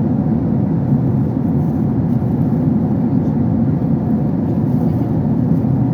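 Airliner cabin noise in flight: a steady, unchanging low rumble of the jet engines and airflow heard from inside the cabin.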